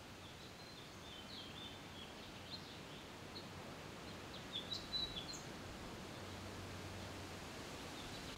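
Quiet outdoor ambience with faint bird chirps: a scattering of short, high calls, mostly in the first half.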